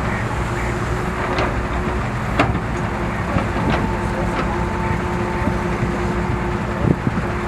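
Heavy construction machinery at a foundation excavation, engines running steadily, with several sharp clanks and knocks, the loudest about two and a half seconds in.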